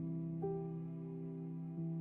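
Slow, gentle background music of held keyboard notes, with new notes coming in about half a second in and again near the end.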